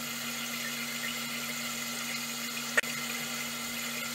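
Toilet tank fill valve running on with its float held down, water pouring into the overflow tube: a steady hiss of running water with a low hum, a simulated stuck-open valve. One sharp click near three seconds in.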